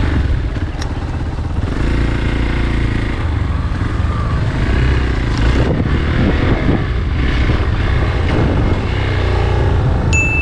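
Motorcycle engine running during an off-road trail ride, its revs rising and falling.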